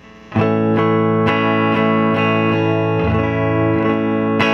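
Electric guitar strummed through a Keeley Compressor Plus pedal. The chord starts about half a second in and is restruck about once a second, and the compressor holds the level even from stroke to stroke.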